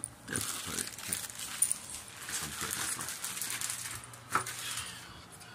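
Rustling with scattered clicks and light knocks, as of things being handled and moved about, with one sharper knock about four seconds in.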